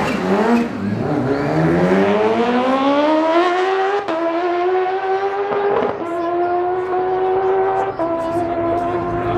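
Two sport motorcycles, one a Kawasaki, launch off a drag-strip start line and accelerate hard down the track. The engine note climbs steadily and drops back with each upshift, about four times.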